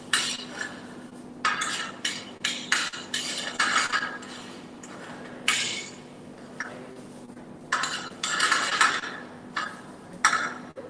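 A metal spoon scraping and clinking against a stainless steel frying pan as quinoa is stirred, in irregular short strokes with pauses between.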